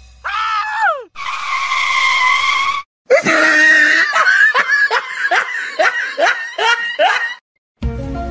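A loud, high-pitched voice: a short falling cry, then a long held scream, then a run of about eight short falling cries at roughly two a second that cuts off suddenly.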